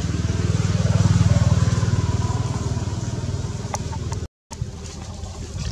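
An engine running close by, with a fast, even low pulse, swelling to its loudest about a second in and then fading. The sound cuts out completely for a moment near the end.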